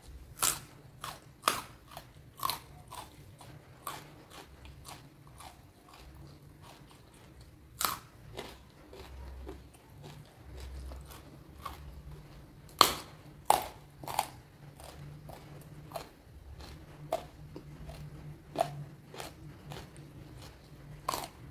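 A person biting and chewing crunchy raw food close to the microphone: sharp, irregular crunches with quieter chewing between, several close together in the first few seconds and the loudest about 8 and 13 seconds in.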